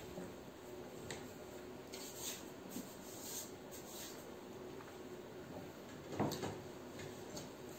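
Faint close-up sounds of a person eating rice and egg curry with the fingers: chewing and lip smacks, with light clicks and rubbing as fingers mix rice on a plate. One louder mouth sound about six seconds in.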